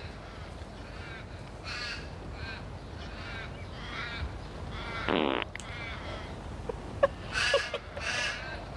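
A single short fart about five seconds in, over crows cawing now and then in the background.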